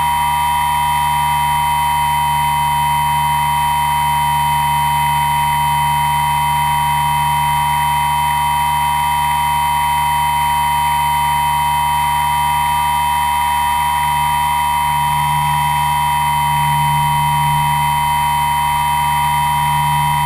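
Motor and propellers of a camera-carrying RC aircraft heard from on board, a loud, steady high whine at constant throttle.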